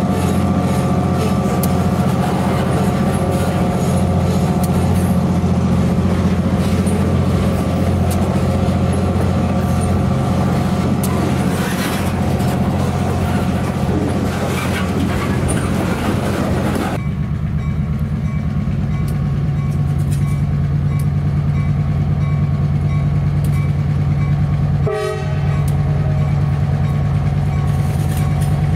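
EMD SW1500 switcher's diesel engine working under load while a heavy train of covered hopper cars rolls past close by. About seventeen seconds in it changes to the locomotive approaching head-on, its engine a steady low drone.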